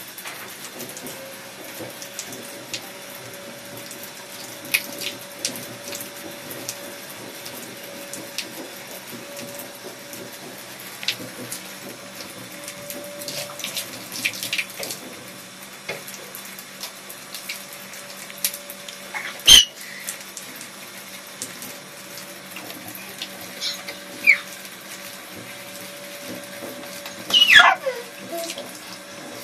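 Water tap running into a bathroom washbasin, a steady rush with a faint steady tone in it. Scattered small clicks, a sharp knock about two-thirds through and a short falling squeal near the end.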